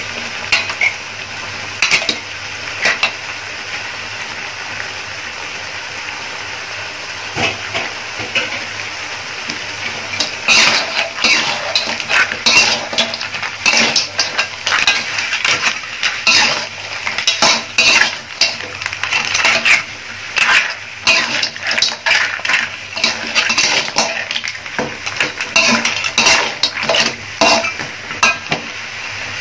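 Metal spatula scraping and clattering against a wok while shell-on crab pieces and green mussels are stirred through a thick sauce, over a steady frying sizzle. The clatter comes only now and then at first, then in quick, frequent runs from about ten seconds in.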